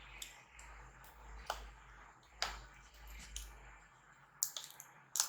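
Adhesive tape being peeled off a laptop's LCD screen panel by hand, with scattered small clicks and crackles.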